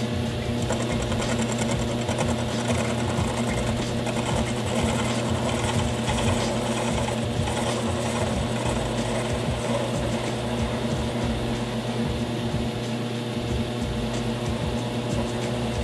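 Homemade concrete-bed metal lathe running, its drive humming steadily with a stack of even tones, while an indexable tool takes a light facing pass across a spinning steel workpiece.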